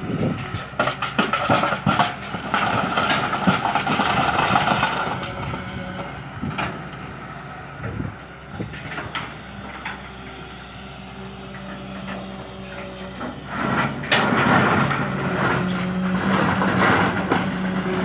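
Long-boom LiuGong excavator's diesel engine running steadily, getting louder under load for a few seconds early on and again from about two-thirds of the way through, with scattered clanks and knocks from the working machine.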